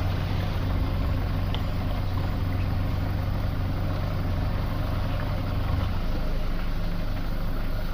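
Tour boat's outboard motor running steadily with a low hum, its note shifting about six seconds in.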